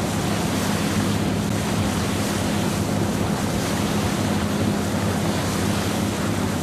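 Wind buffeting the microphone and water rushing past boats under way, over a steady low drone of a boat engine.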